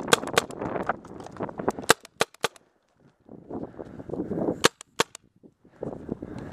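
Paintball marker shots, sharp single pops in small groups: two near the start, a quick string of four about two seconds in, and two more near five seconds in. Rustling of movement through grass runs between the shots.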